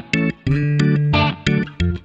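Background music: plucked guitar notes over a bass line, in short rhythmic phrases.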